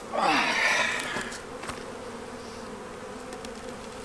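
Honeybees from an opened hive buzzing steadily. In about the first second there is a louder, noisy burst as the wooden deep hive box is handled.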